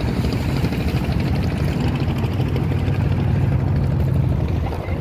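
Small boat engine running steadily: a loud, even low chugging rumble with a fast regular pulse.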